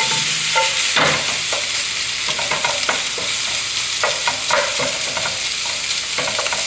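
Pork and vegetables sizzling in a hot frying pan while being stirred and tossed, with a steady high hiss and irregular scrapes and clicks of the utensil against the pan.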